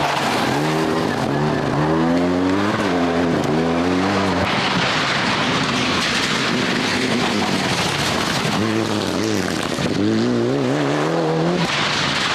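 Rally cars at full speed on a tarmac special stage: engine notes climbing and dropping back over and over as the drivers shift and brake through the bends, in two loud passes, one at the start and one near the end, with a noisier stretch of car sound between.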